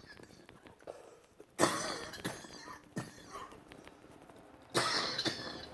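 A woman coughing a few times. There is a sharp cough about a second and a half in, a short one about three seconds in, and a longer breathy one near the end.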